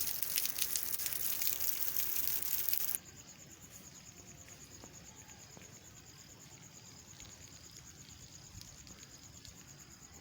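Rain pattering hard for about three seconds, cutting off abruptly. Then a much quieter, steady, high-pitched insect trill, cricket-like, with a few faint drips.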